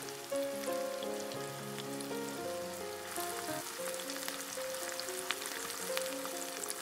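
Egg-coated chicken strips deep-frying in a wok of hot oil: a steady crackling sizzle with scattered pops. Background music with a melody of held notes plays over it.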